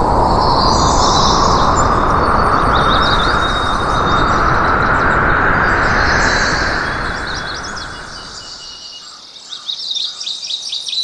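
Birds chirping over a loud, even rushing noise that swells and then fades away about eight seconds in, leaving the chirps alone.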